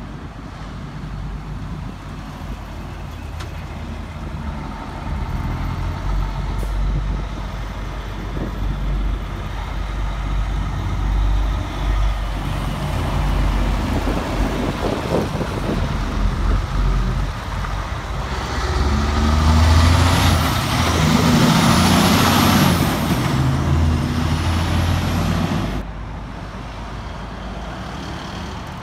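Heavy semi-trailer truck's diesel engine running as the truck approaches and passes close by, its rumble building steadily and loudest with a broad hiss about two-thirds of the way through. The sound drops off suddenly near the end.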